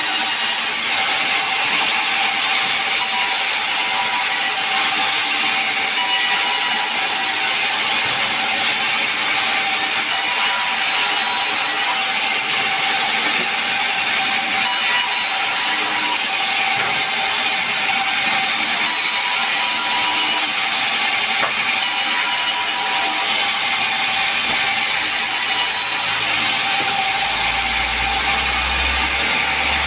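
Sawmill machinery running steadily as a saw cuts pine logs into planks. A low rumble joins in near the end.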